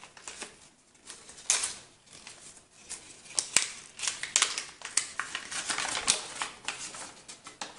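Folded paper instruction leaflet being unfolded and handled: irregular rustling and crinkling, with one sharp click about three and a half seconds in.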